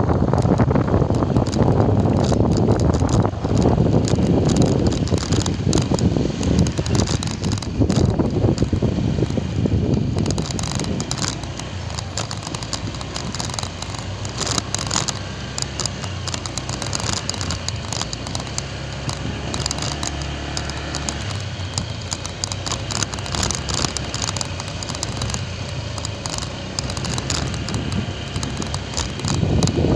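Motorcycle engine running while riding over a loose gravel road, with tyres crackling on the stones. Wind rumbles on the microphone, heavier for the first ten seconds or so, after which the engine hum comes through more steadily.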